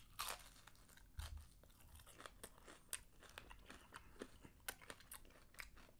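Faint, irregular crisp crunching from chewing fried shrimp, the breaded coating crackling between the teeth.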